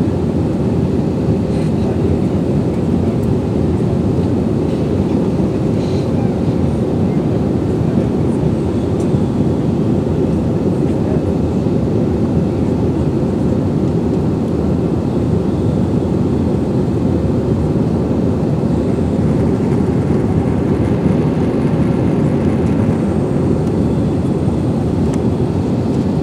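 Steady cabin noise of a jet airliner in flight: an unbroken, low drone of engines and rushing air heard inside the cabin.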